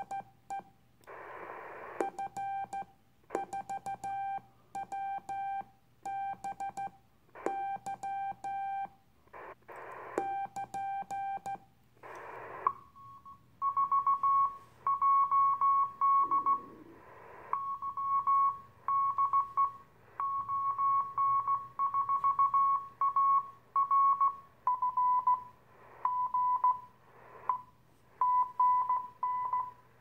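Morse code (CW) through an Icom IC-251E 2 m all-mode transceiver. First comes a lower keyed tone broken by bursts of receiver hiss, the operator's own sending. From about 13 seconds in, a louder, slightly higher Morse signal arrives: the other station answering. Later its pitch drops a little.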